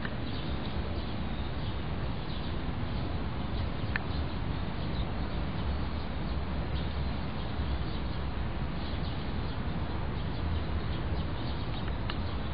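Steady outdoor background noise with a low rumble, broken by a few brief, faint high chirps, one about four seconds in and one near the end.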